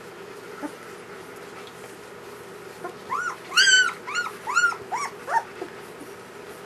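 Newborn German Shepherd puppies squealing: a run of about eight short, high-pitched cries that each rise and fall, starting about three seconds in, the loudest near the start of the run.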